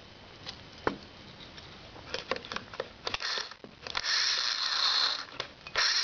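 Harley-Davidson Evo Sportster electric starter motor, out of the bike and wired straight to a battery with jumper cables, clicks and crackles as the leads make contact. It then spins free twice, whirring loudly for about a second, stopping, and starting again near the end.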